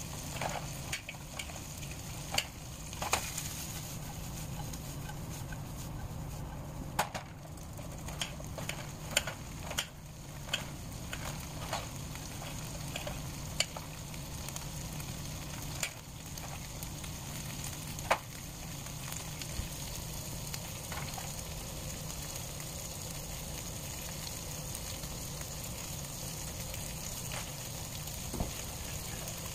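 Sausage slices sizzling steadily in a frying pan. Over it come about a dozen sharp, irregular clicks of a kitchen knife striking a plate while dicing onion, mostly in the first two-thirds.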